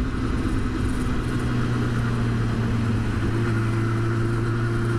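2007 Kawasaki ZX-10R's inline-four engine running steadily at low road speed, with wind and road noise rushing over the microphone.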